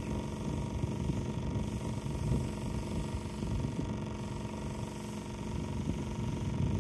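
Electric pressure washer running with a steady motor hum.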